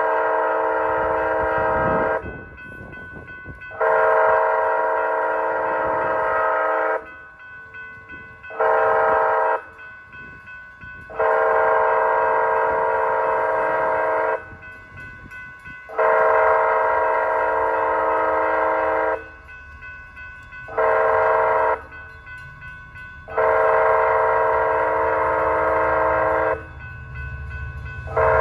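Amtrak locomotive's multi-chime air horn sounding for the grade crossing in a series of long blasts of about three seconds, with a short blast after the second and after the fifth. A low rumble from the approaching train builds near the end.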